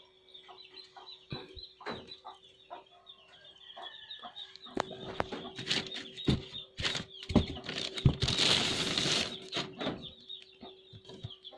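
Hands unpacking a mixer from its box: scattered knocks and taps on cardboard and plastic, with a louder rustle of packaging about eight seconds in.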